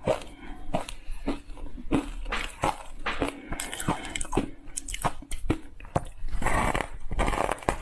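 Ice coated in matcha powder being bitten and chewed: an irregular string of crisp, sharp crunches, with a louder bite near the end.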